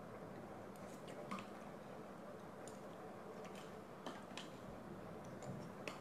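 Small, irregular crackles and clicks from a wafer chocolate bar's wrapper being handled and peeled open, about ten in six seconds over a steady faint background hiss.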